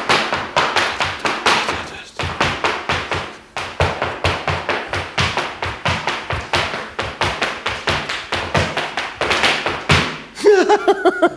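Irish dance shoes tapping rapidly on a hard floor, a fast rhythmic run of sharp heel and toe strikes as a dancer performs a step at full speed, with a few brief pauses. Near the end the tapping stops and a man laughs.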